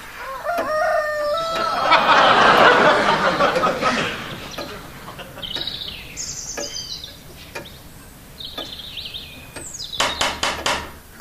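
A rooster crows, then small birds chirp in scattered bursts: a dawn chorus. A loud rushing noise follows the crow for about two seconds. Near the end comes a quick series of about five sharp knocks.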